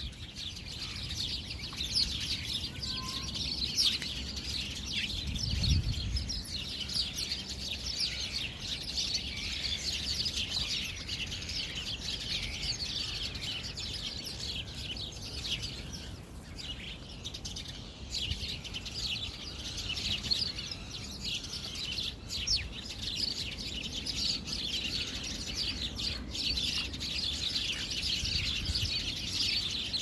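A flock of sparrows and chaffinches chirping, with many short, overlapping chirps throughout. There is a brief low rumble about six seconds in.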